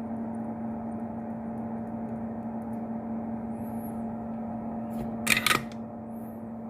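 Steady electrical hum from soldering bench equipment. About five seconds in comes a brief, loud, noisy double burst, like a tool knocked or set down on the bench.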